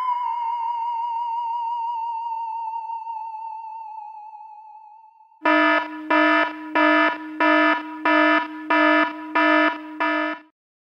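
A wavering electronic synth tone glides down and fades out over about five seconds. Then a loud buzzing alarm sound effect beeps about eight times, a little under two beeps a second, and cuts off.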